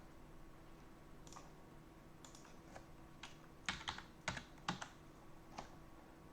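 Computer keyboard keys tapped irregularly and faintly, a dozen or so taps, bunched most closely together around the middle.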